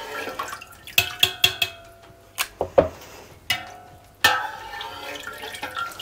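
Slotted metal skimmer scooping soft cheese curds out of a pot of whey, clinking several times against the pot, with whey dripping and splashing back into the pot.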